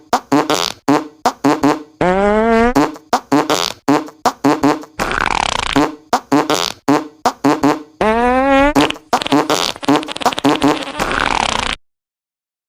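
A rapid string of fart sounds, dozens of short blasts one after another. Some are longer and buzzier with a pitch that slides upward, and a couple are airy and hissing. They stop abruptly about a second before the end.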